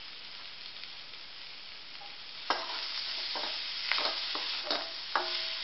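Amla pieces sizzling in a kadhai on the flame; about two and a half seconds in, a metal spatula starts stirring them, scraping and clicking against the pan at irregular moments, and the sizzle grows louder.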